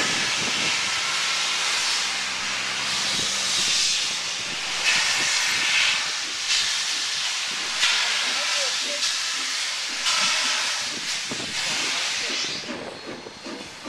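Ja 1275, an NZR Ja-class 4-8-2 steam locomotive, hissing loudly as it moves slowly along, its steam venting in repeated surges every second or two. The hiss falls away near the end.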